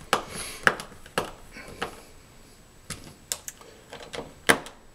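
A small screwdriver driving a mounting screw into a Nest thermostat's plastic base plate: a string of irregular sharp clicks and ticks as the blade works in the screw head, the loudest near the end.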